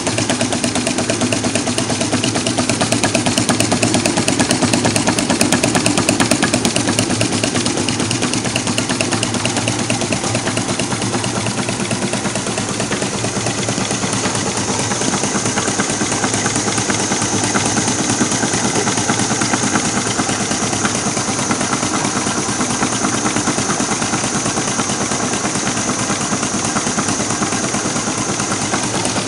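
Home-built two-cylinder gamma-type Stirling engine running: a fast, even mechanical clatter from its crank and linkages. A steady hiss from the gas burners under its hot cylinders joins about halfway through.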